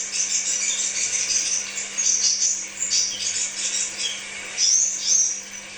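Crimson sunbird (kolibri sepah raja) singing: a fast, high-pitched twitter of chirps and short sweeping notes, with a faint steady low hum underneath.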